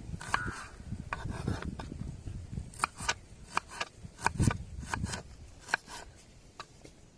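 Irregular clicks and light knocks of kitchen utensils, some with a short ringing tone, over rubbing and scraping.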